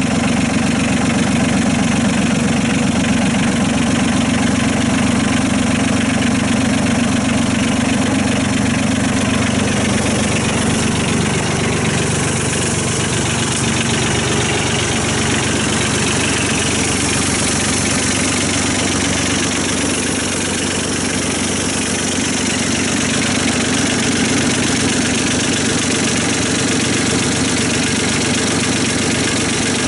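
Kubota B8200 compact tractor's diesel engine idling steadily at low rpm.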